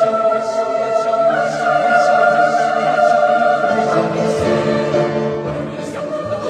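Background music of long held notes over a faint light beat about twice a second, with a change of chord about four seconds in.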